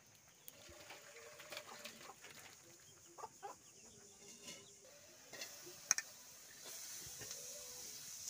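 Faint hen clucking in the background, with soft clinks of steel cookware and one sharp metal clank about six seconds in. A steady hiss sets in near the end.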